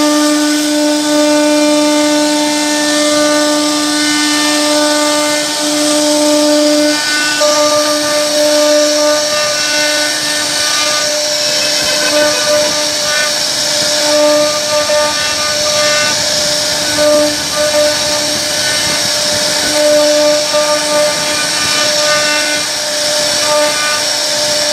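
CNC router spindle whining at a steady high pitch while its bit carves a relief pattern into a wooden door panel, with a continuous hiss of cutting. The whine wavers and breaks up now and then as the cutter works through the wood.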